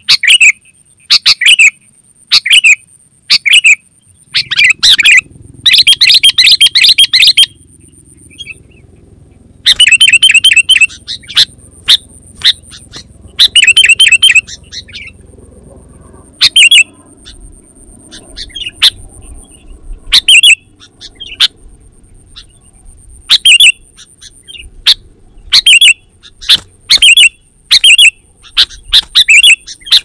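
Sooty-headed bulbul (kutilang) calling: loud short whistled notes repeated every second or so, with several runs of fast chattering in the first half.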